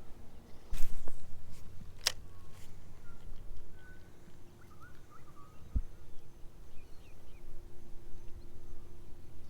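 Outdoor ambience with faint short bird chirps, a low rumble of wind or handling noise about a second in, a sharp click about two seconds in and a low thump near the six-second mark.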